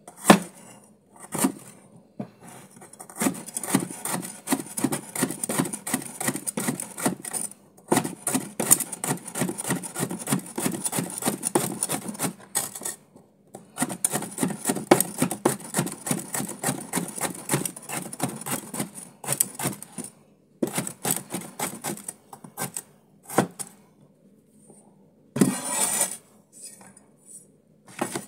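Cleaver thinly slicing bitter melon on a cutting board: rapid runs of knife strokes tapping the board, two long runs with a short pause between, then a few scattered taps and a brief clatter near the end.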